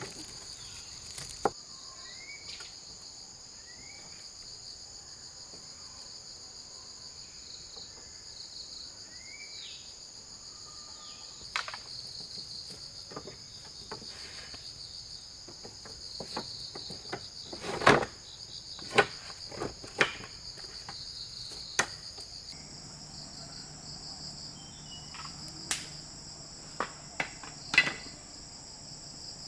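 Rainforest insects, crickets or cicadas, buzzing in a steady high chorus that shifts a little higher about two-thirds of the way through. Scattered sharp knocks break in, mostly in the second half.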